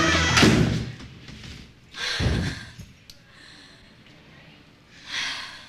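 Music fading out in the first second, then a single heavy thud, like a slam, about two seconds in, and a short hiss near the end.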